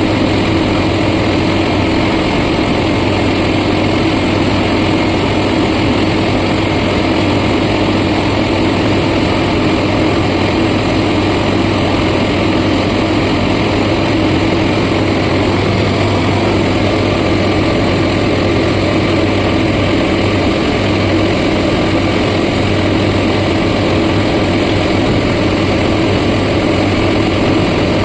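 Heavy construction machine's diesel engine running steadily, a constant low hum with no change in pitch or load.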